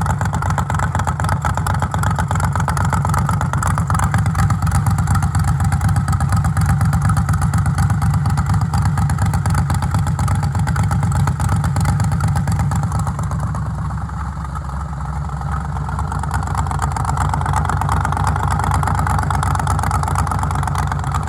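Freshly rebuilt Chevy LS V8 running on its first startup with new heads, still warming up. It runs steadily, with a slight drop in level about two-thirds of the way through.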